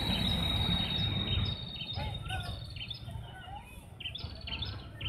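Riverside ambience: small birds chirping again and again, over a steady high-pitched insect drone that fades out about three seconds in. A low rumble underneath drops away about a second and a half in.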